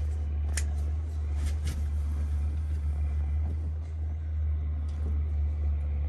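A steady low hum, with a few faint clicks about half a second and a second and a half in.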